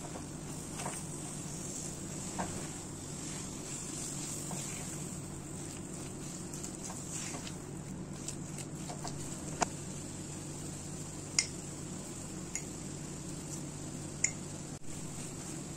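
A spatula stirring and scraping a crumbly date-and-nut mixture in a nonstick pan, with several sharp taps against the pan in the second half, over a steady low hum.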